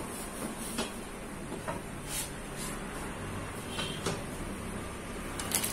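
A few faint, scattered knocks and clicks of kitchen items being handled, over a steady low background hum.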